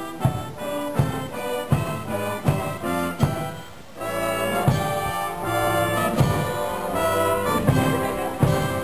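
Brass band playing: trombones and other brass over a steady drum beat, about one beat every three-quarters of a second, swelling into fuller held chords about halfway through.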